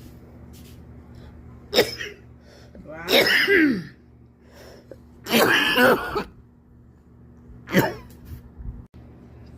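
A person coughing four times: a short sharp cough about two seconds in, two longer coughs around three and five and a half seconds, and another short sharp cough near the end.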